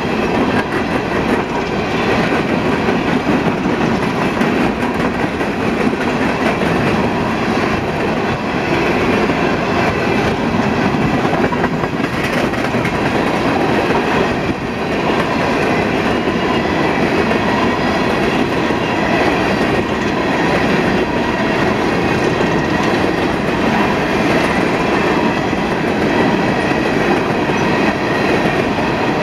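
Union Pacific coal train's cars rolling past on steel wheels, a steady loud rumble that does not let up.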